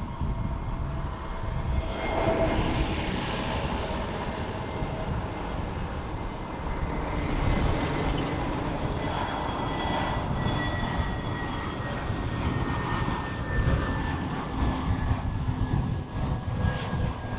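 Boeing 777-300ER jet engines running, a steady rushing roar with a thin whine that slowly falls in pitch.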